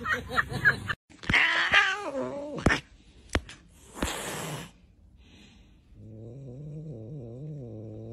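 A fluffy white colourpoint cat gives a wavering yowl that falls in pitch, then hisses sharply about four seconds in. From about six seconds in it keeps up a long, low growl.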